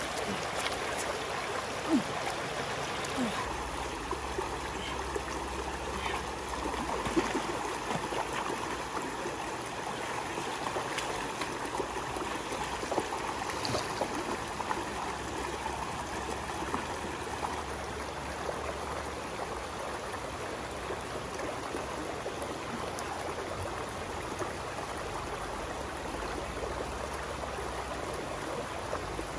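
Shallow stream running over rocks, a steady rush of water, with a few faint clicks here and there.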